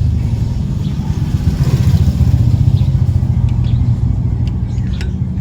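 A motor engine running steadily at idle, a low even rumble. A few light metallic clinks, like hand tools on metal, sound in the second half.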